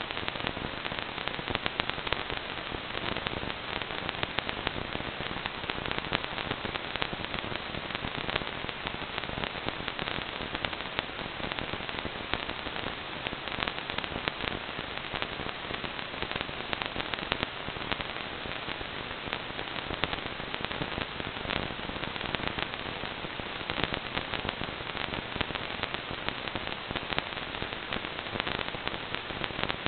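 Steady crackling static: dense rapid clicks over a hiss, from an analog FPV video receiver that has no signal.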